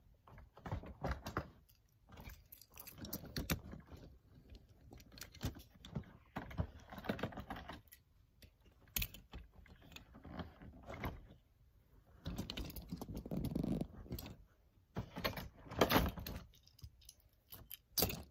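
Toy trains being handled and set down one after another: an irregular run of clicks, clacks and small rattles as the pieces knock against each other and the ledge.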